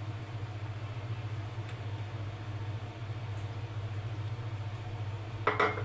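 Steady low hum, like a small motor running, over a faint hiss. A brief voice sound comes near the end.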